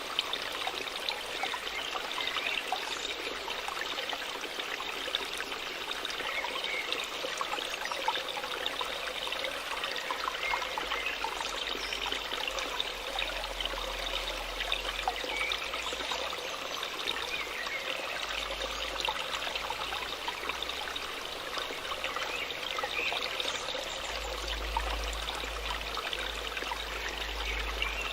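Waterfall water falling and splashing in a steady, unbroken rush with small flickering splashes throughout.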